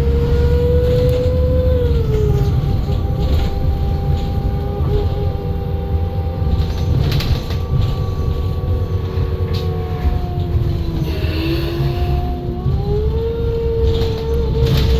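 Menarinibus Citymood 12 CNG city bus under way, its FPT Cursor 9 gas engine rumbling under a driveline whine from the ZF Ecolife automatic transmission. The whine drops in pitch about two seconds in, sinks lower around eleven seconds, then climbs back up about thirteen seconds in as the bus picks up speed again.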